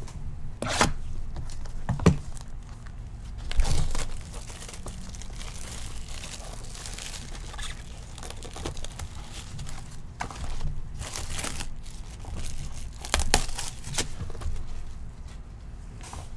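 Plastic shrink wrap being torn and crumpled off a trading card hobby box: uneven crinkling with several louder, sharp rips along the way.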